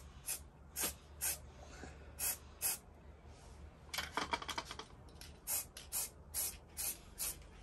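Aerosol spray paint can firing short hissing bursts, roughly two a second, as the carpet kicker head is given a coat of paint. About four seconds in, the can is briefly shaken, its mixing ball rattling.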